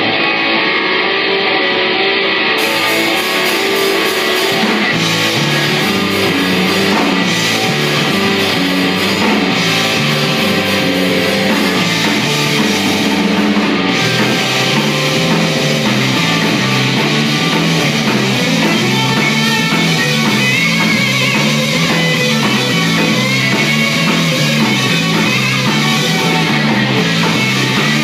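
Live hard-rock band playing loud: electric guitar, bass guitar and drum kit. About four seconds in, a fast repeating low riff kicks in and drives the rest of the passage.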